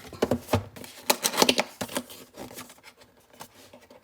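Product packaging being handled and opened: a quick run of clicks, taps and crinkles, busiest in the first two seconds and sparser after.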